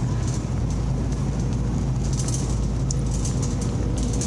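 Shopping cart rolling across a hard store floor: a steady low rumble with light rattling.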